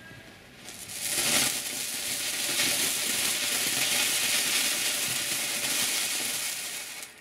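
Keller 'Vulkan' fireworks fountain spraying sparks with a steady, loud hiss that builds about a second in and dies away near the end.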